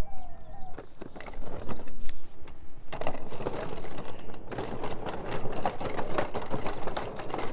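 Footsteps on a wooden plank walkway and wooden steps, with a dense, irregular clatter of knocks and creaks from the boards that thickens about three seconds in. A few short falling bird calls are heard in the first second.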